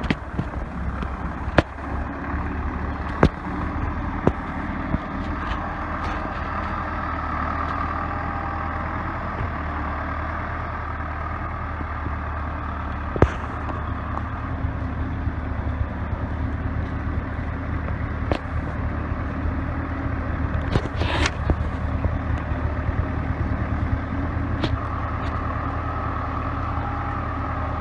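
Old Case 580B backhoe's four-cylinder diesel engine running steadily as the machine is driven slowly down a steep grade, with occasional sharp knocks and clanks over the engine hum.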